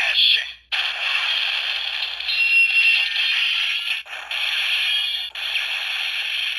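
Kamen Rider Brave DX toy's finisher sound effect played through its small built-in speaker: really loud, harsh, distorted electronic audio, broken by short gaps about a second in and again around four and five seconds.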